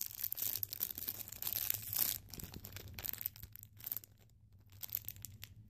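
Clear plastic wrappers of squishy toys crinkling and rustling as they are handled, in irregular rustles that die away over the last couple of seconds.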